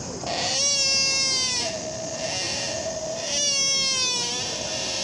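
Sika deer calling: two long, high, drawn-out bleating calls, each slowly falling in pitch, with a third call starting near the end.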